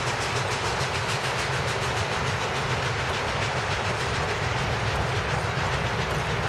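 Passenger train coaches rolling past close by, their steel wheels running on the rails in a steady, loud rumble and rush of noise.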